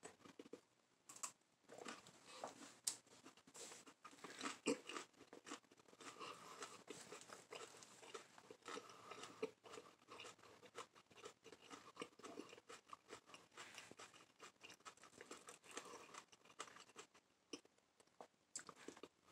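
A person chewing a raw habanero pepper: faint, irregular crunching and wet mouth clicks.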